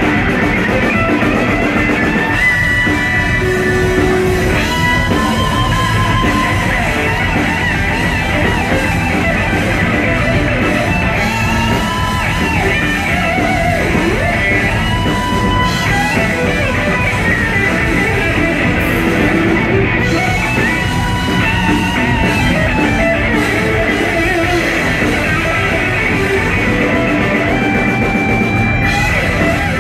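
Live blues-rock band playing: electric lead guitar holding and bending notes over bass and a drum kit.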